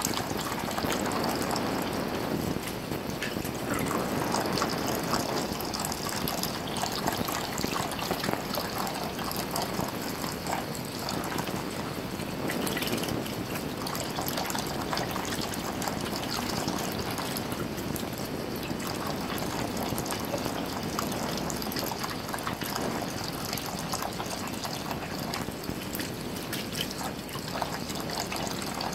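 Thin stream of tap water running into a bathroom sink, trickling and splashing steadily as a green-cheeked conure bathes in the shallow water beneath it.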